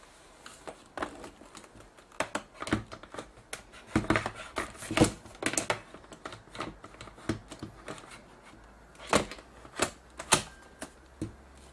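Irregular plastic clicks and knocks as a battery pack is handled and slid onto a camcorder, with a busy run of clicks about four to six seconds in and a few sharper single clicks near the end.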